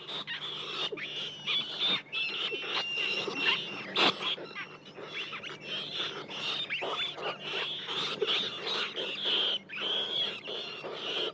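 A large swarm of rats squeaking all at once: a dense, continuous chorus of short, high squeals with quick scrabbling clicks mixed in.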